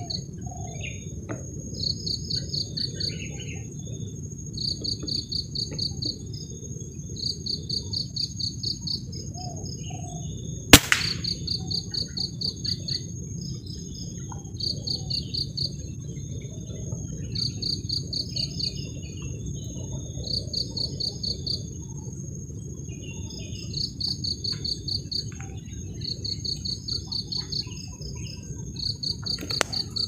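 Insects calling: trills of rapid pulses about a second long, repeating every two to three seconds, over a steady thin high-pitched insect whine, with a low rumbling noise underneath. One sharp click a little before halfway is the loudest sound.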